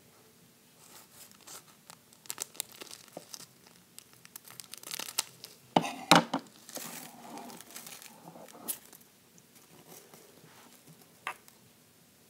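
Small clear plastic bag crinkling and tearing as it is handled and pulled open by hand, with a couple of sharp crackles about six seconds in.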